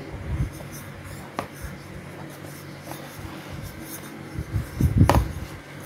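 Hands and a drinking glass pressing cassava dough flat on a flour-dusted plastic tray: soft rubbing and scraping with a few knocks, the loudest about five seconds in.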